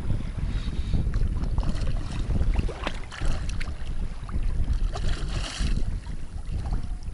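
Wind buffeting the microphone, with water lapping and a short splash of water about five seconds in, while a hooked pike is played on a bent spinning rod.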